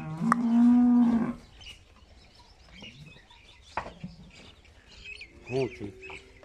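Cattle mooing: one long, loud call in the first second and a half, then a fainter, shorter call about five and a half seconds in.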